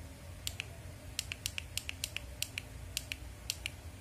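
Push buttons on a small plastic remote control clicking, pressed and released repeatedly, switching the LED lights of an arc reactor display. The clicks come quickly, many in close pairs, about a dozen presses.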